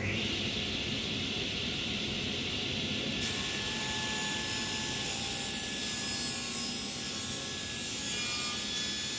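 Table saw switching on and running steadily. From about three seconds in, it rips a strip of oak lengthwise, adding a harsh, hissing cutting sound over the blade's whine.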